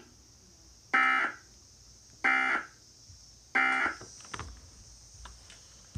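Emergency Alert System End of Message signal: three short, harsh digital data bursts, about 1.3 seconds apart, marking the end of the warning broadcast.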